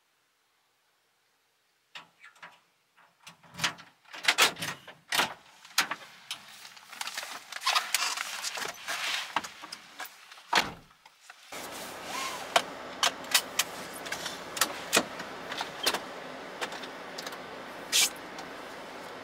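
Clicks, knocks and rustling of someone handling things inside a small van's cabin. About halfway through, a steady running noise comes on suddenly and continues, with more scattered clicks over it.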